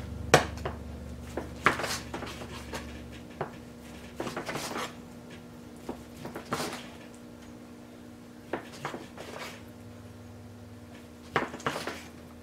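Large kitchen knife slicing cooked steak on a plastic cutting board, held with metal tongs: irregular short knocks and taps as the blade meets the board and the tongs shift the meat.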